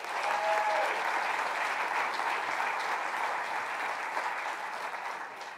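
Audience applause, clapping steadily and then fading out near the end.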